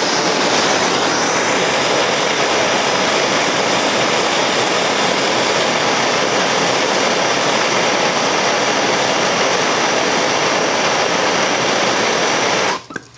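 Handheld gas torch burning with a steady hiss as its flame plays on a nut and threaded shaft, burning off fabric and debris wrapped around the threads. It starts abruptly and shuts off shortly before the end.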